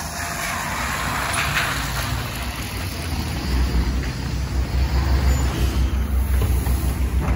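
Trolleybus pulling in at a stop, with a hiss of compressed air from its pneumatics about a second in. From about halfway, low, uneven rumbling and bumping as the recording is carried up the steps and aboard through the open door.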